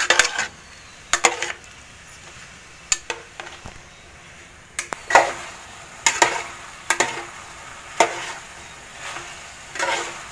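A metal spoon stirring rice-flour balls in a metal pan of sugared water and coconut, scraping the pan about a dozen times at uneven intervals of roughly a second. The water is being cooked off until the pan is dry.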